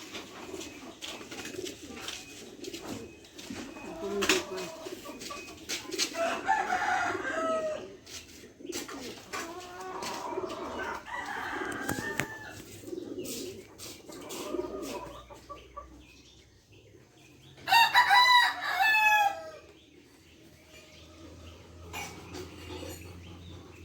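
Rooster crowing: several fainter crows in the first half, then one loud crow of about two seconds near the end, with scattered clucking between.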